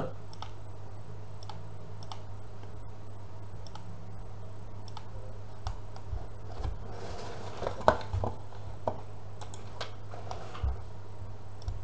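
Scattered single clicks of a computer mouse and keys, a dozen or so spread irregularly with a small cluster of them near the middle, over a steady low hum.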